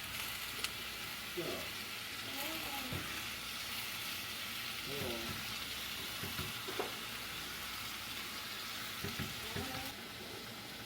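Food frying in a pan: a steady sizzle with a few short voice sounds over it, which drops away near the end.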